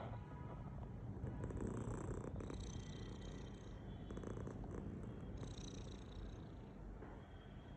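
Sleeping domestic cat snoring: a low, rough rumble that swells and fades with its breathing.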